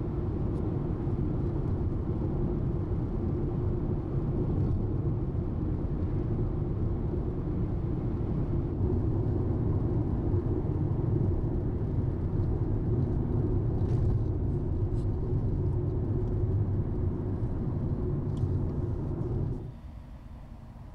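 Steady low rumble of road and engine noise inside a car driving on a highway. It drops away suddenly near the end to a quieter background.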